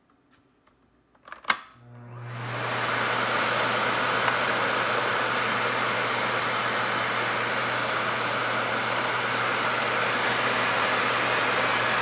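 Miele Compact C2 canister vacuum cleaner switched on with a sharp click about a second and a half in. Its motor spins up over about a second, then runs steadily with a loud rushing whoosh over a low hum, on its max suction setting.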